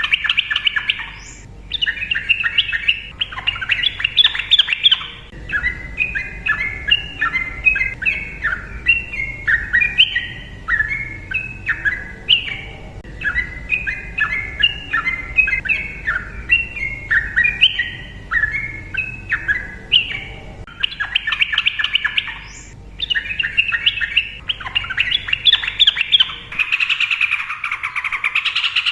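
Sooty-headed bulbul (trucukan) singing a long, rapid, unbroken run of short whistled phrases, with harsher, denser chattering at the start and again in the last several seconds.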